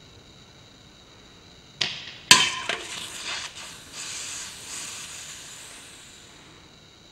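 An airsoft BB hits a stacked soda can. First a sharp snap, then about half a second later a loud metallic hit that rings, with a few clattering knocks as the can is knocked over. A fizzing hiss of soda spraying from the punctured can follows and fades over a couple of seconds.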